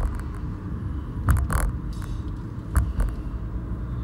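Steady low road and engine rumble of a moving car, heard inside the cabin, with a few short knocks about a second and a half and three seconds in.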